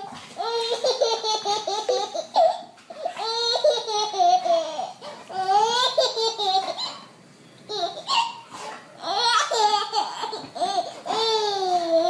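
Baby laughing in high-pitched bouts of belly laughter, broken by short breaths, with a longer pause about seven seconds in.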